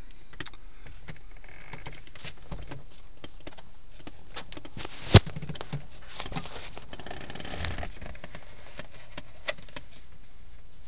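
Handling noise from a handheld camera moving around a parked car's interior: scattered small, irregular clicks and rustles over a steady hiss, with one sharp click about five seconds in.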